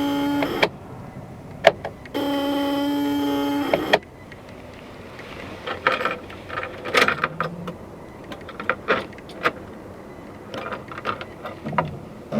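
A steady electric whine, in two runs: one stops about half a second in, the other lasts about two seconds and stops sharply. This fits the 2001 Sprinter's starter turning while the engine does not fire, a van that will not start. Scattered clicks and knocks follow.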